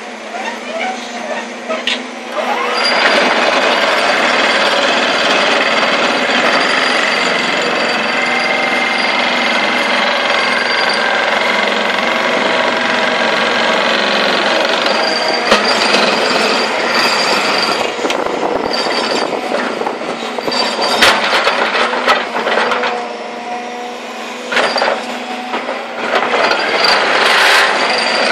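SVR30 hydraulic vibro ripper on a 30-ton-class Volvo excavator working: a steady loud mechanical buzz with a pitched hum, coming up to full level about three seconds in, with scattered sharp knocks in the second half and a brief drop in level near the end.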